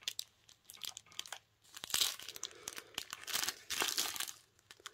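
Strip of small clear plastic bags of round diamond-painting drills crinkling as it is handled, in irregular bursts, loudest about two seconds in and again just before four seconds.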